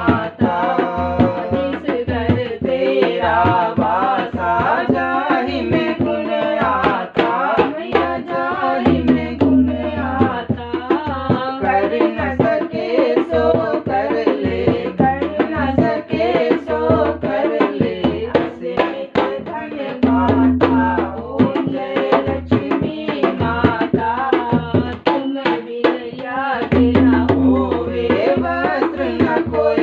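Devotional aarti singing to Lakshmi with a rope-tensioned dholak drum played along in a quick, steady beat.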